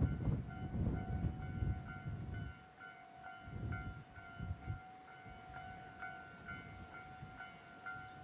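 The rumble of a departing ED75 electric locomotive on the rails, fading away over the first two and a half seconds and leaving weaker swells. Over it a level-crossing warning bell rings steadily, about two strikes a second.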